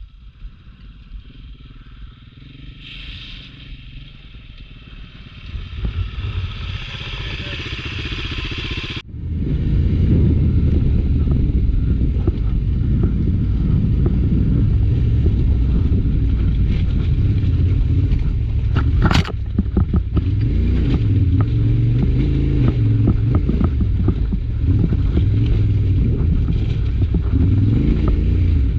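Adventure motorcycle engine running under load while riding off-road, with scraping and clattering from the trail surface and a sharp knock about 19 seconds in. For the first nine seconds there is only a quieter hiss, then the engine sound comes in suddenly and loudly.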